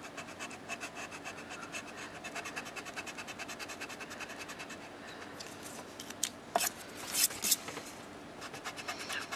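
Pen-style retractable stick eraser rubbed on cardstock in quick, repeated short strokes, lifting dried liquid masking fluid off a coloured image. A few louder scratches come a bit past halfway.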